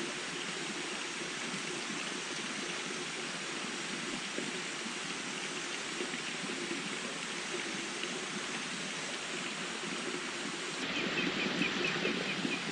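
Steady rush of flowing water. About two seconds before the end the sound shifts slightly louder and a rapid, high chirping comes in over it.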